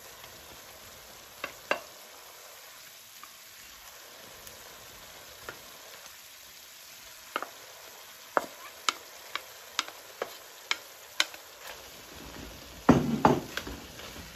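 Chicken, bell peppers and onion stir-frying in hot oil, sizzling steadily, while a utensil knocks against the pan in sharp clicks that come more often from about halfway through, with a louder clatter near the end.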